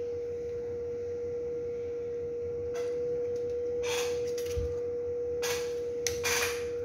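A steady, single-pitched hum throughout, with three short rustling handling noises in the second half as hands move plastic Petri dishes on the bench.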